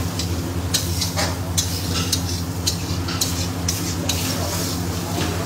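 Metal spatula stirring and scraping thick tomato masala in a steel kadai as it fries on a gas flame. There are irregular scrapes and clinks against the pan over a steady low hum.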